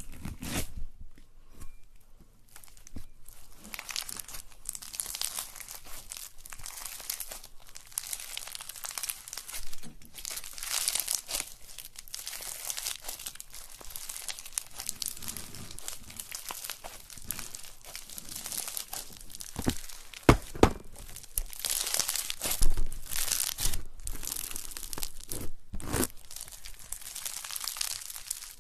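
Slime being squeezed and worked by hand close to the microphone, with dense, irregular crackling and crinkling and a few louder sharp pops in the second half.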